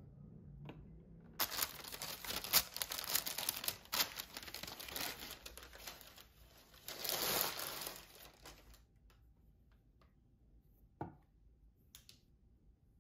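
Thin tissue wrapping paper crinkling and rustling for about seven seconds as a wax taper candle is unwrapped by hand. A single light knock follows near the end.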